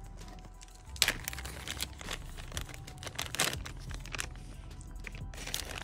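Clear plastic parts bag crinkling and rustling in irregular crackles as it is handled, starting about a second in.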